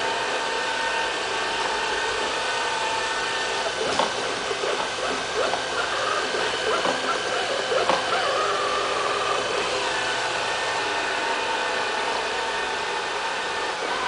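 Robot vacuum cleaner running on a tile floor: a steady whine from its suction motor and brushes. Between about four and eight seconds in there are irregular knocks and rattles as it runs up against an obstacle.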